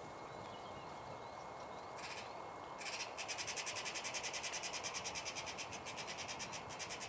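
Eurasian magpie chattering, as magpies mob a hooded crow: a short call about two seconds in, then a rapid, even rattle of about eight notes a second lasting about four seconds.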